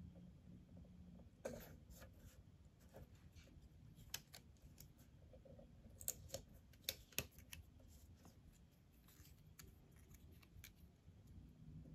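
Faint handling of paper and sticker sheets: scattered small ticks and crinkles as a sticker label is picked and peeled, with a few sharper clicks in the middle.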